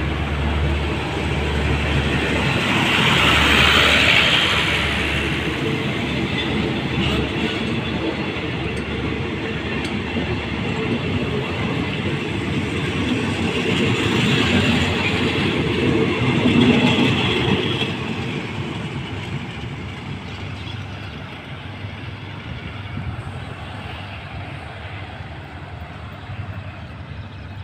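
Passenger coaches of a State Railway of Thailand express train rolling past as it departs the station, with a steady rumble and clatter of wheels on the rails. The sound fades from about two-thirds of the way in as the train draws away.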